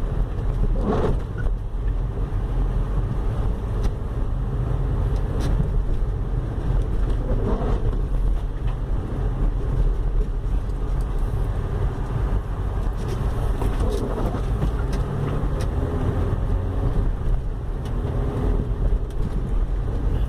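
Steady road and drivetrain rumble inside a moving 2004 Honda Civic, with a few faint, irregular knocks. The car has a front-end 'tuk-tuk' that the mechanic attributes to the steering rack and its mount bushings.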